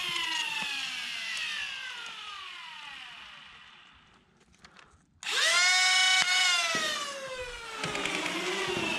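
Flywheel foam blaster's motors winding down with a falling whine that fades almost away. About five seconds in they rev up sharply, hold a steady high whine for about a second with a couple of clicks, then spin down again with a slowly falling pitch.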